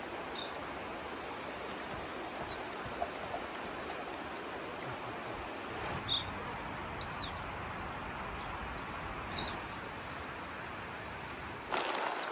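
Steady rush of the Upper Rogue River's flowing water, with a few brief high bird chirps scattered over it.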